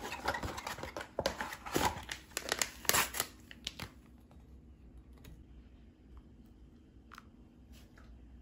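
Packaging rustling and tearing as it is handled: dense crinkling for the first four seconds, then only a few scattered rustles and clicks.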